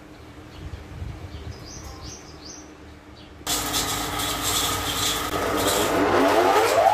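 Wood lathe running with a turned wooden vase spinning: a low, fairly quiet hum with a few faint bird chirps, then about three and a half seconds in an abrupt change to loud whirring and rubbing, with a rising whine near the end.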